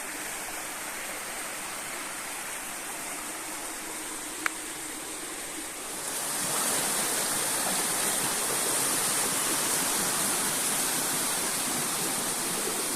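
Steady rush of flowing water, growing louder about six seconds in. A single short click sounds a little before the rise.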